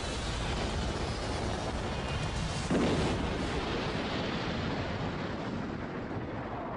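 A dramatic rumbling, explosion-like sound effect. It swells again about three seconds in and then slowly dies away.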